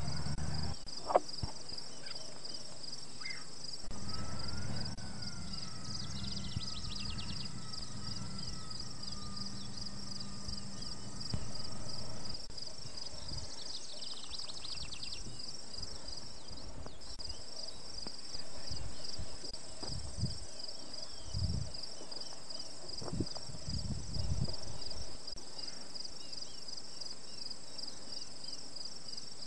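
A summer insect chorus: a high, rapidly pulsing trill that carries on steadily, dropping back for a few seconds midway. Patches of low rumble come and go underneath.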